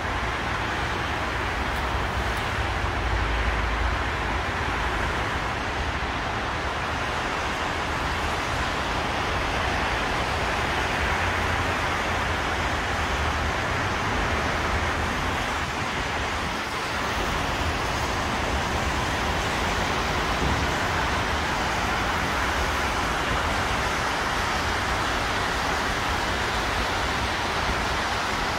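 Steady traffic noise from cars driving on a wet multi-lane highway, an even wash of tyre and engine noise with a low rumble underneath.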